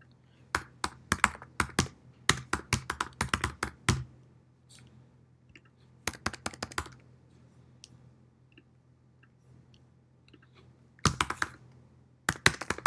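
Typing on a computer keyboard: runs of quick keystrokes from about half a second to four seconds in, a shorter run around six seconds, and another from about eleven seconds on, with pauses between.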